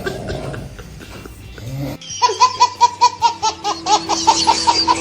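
Low room sound, then about two seconds in a laughter sound effect starts abruptly: a quick run of high-pitched laughs, about four a second, over a steady tone.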